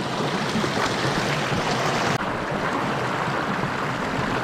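Creek water rushing and splashing close to the microphone, a steady loud noise with a slight change about two seconds in.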